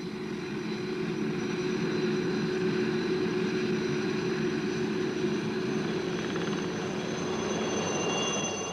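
Helicopter running with its rotor turning: a steady hum with a thin high-pitched whine on top. It fades in at the start.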